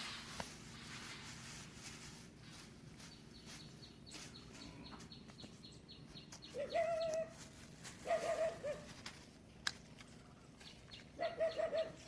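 A bird calling in three short bursts of quick, bouncing notes: one a little past halfway, one about eight seconds in, and one near the end.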